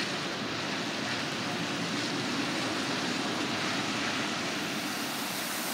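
Steady rushing hiss of rain and traffic on a wet city street, turning hissier near the end.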